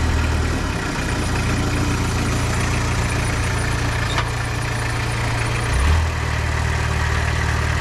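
Kubota V1903 four-cylinder diesel engine of a homemade hydrostatic-drive tractor running steadily as the tractor drives. The engine note changes about a second in, with a brief louder swell near six seconds.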